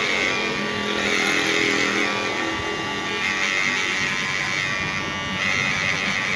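Cordless KIKI electric hair clipper running with a steady buzz, its tone shifting a little partway through.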